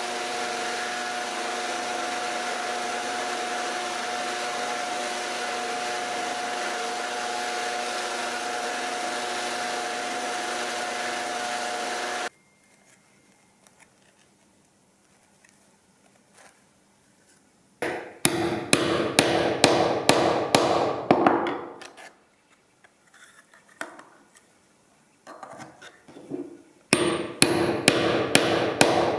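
Bench belt sander running steadily with a humming tone while the kydex sheath is held against the belt; it stops suddenly about twelve seconds in. After a pause with faint clicks, a small hammer strikes the kydex sheath on a wooden workbench in two quick runs of sharp, ringing blows, about three or four a second.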